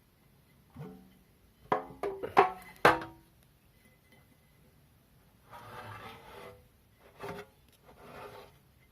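Hard objects knocked together several times with short ringing tones, the strikes clustered between about one and three seconds in. Then come two spells of rubbing or scraping with a single click between them.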